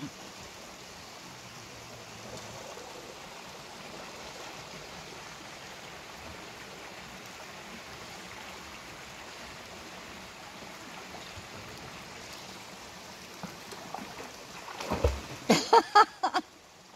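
Steady rush of a small waterfall and stream running over rocks into a pool. Near the end comes a short burst of loud, sharp sounds.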